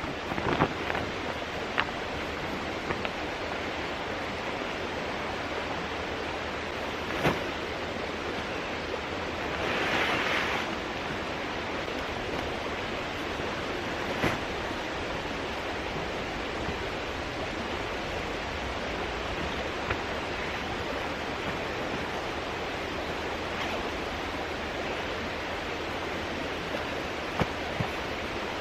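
Mountain stream rushing steadily, with a few sharp clicks and knocks and a brief hissing rustle about ten seconds in.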